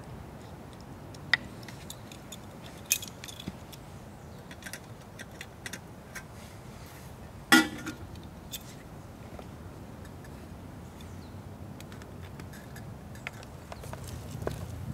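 Scattered light clinks and knocks of small hard objects being handled, with one sharper clink about halfway through that rings briefly.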